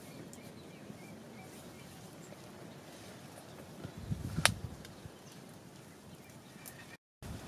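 Quiet outdoor hush around a wood cooking fire with faint scattered crackles. About halfway through comes a sharp knock with a few dull thuds as the metal cooking pot is handled on the fire. The sound cuts out briefly near the end.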